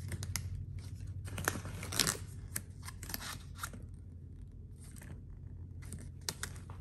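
Paper hang tag and card being handled, with tissue paper close by: a string of short, crisp clicks and rustles, over a steady low hum.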